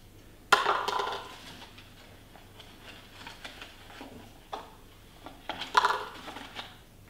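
Rolled-up newspaper being handled and twisted, paper rustling and crackling in short bursts: a sharp one about half a second in, smaller ones in between, and a busier cluster near the end.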